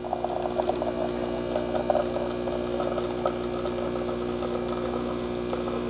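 Gourmia automatic espresso machine's pump humming steadily while it pulls a double shot, with a light irregular patter of espresso streaming into a glass.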